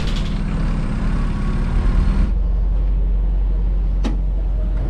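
Engine and road noise heard from inside a moving city bus: a steady low rumble. The higher hiss drops off a little over two seconds in, and a single sharp click comes about four seconds in.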